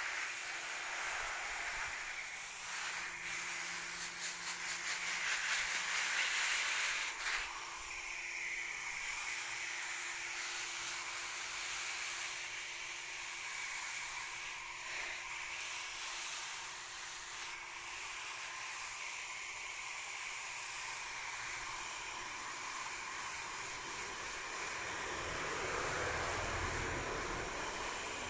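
Water spraying from a garden hose onto leafy shrubs: a steady hiss of spray falling on the foliage, swelling for a few seconds near the start and again near the end.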